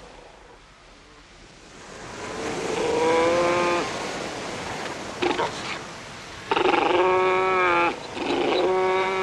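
Fur seals calling: after about two seconds of surf hiss, three long steady calls and one short one. These are the contact calls by which a fur seal pup and its mother find each other.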